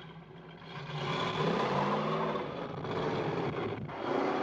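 1970 Ford Mustang's engine revving hard as the car accelerates. It is low at first, then loud from about a second in, with the pitch climbing and dropping, and it climbs again near the end.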